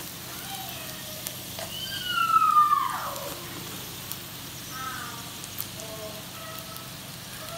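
Sausages sizzling in hot oil in a frying pan, a steady hiss with small crackles. About two seconds in, a loud falling pitched cry rises over it, followed by a few shorter pitched calls around five to six seconds.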